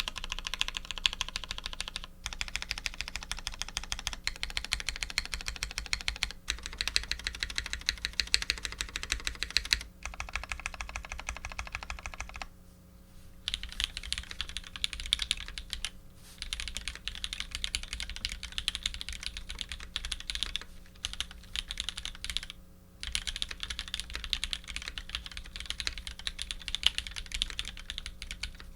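Fast continuous typing on a custom mechanical keyboard with lubed Cherry Vintage Black linear switches, GMK keycaps and an aluminium plate: dense runs of keystroke clacks broken by brief pauses.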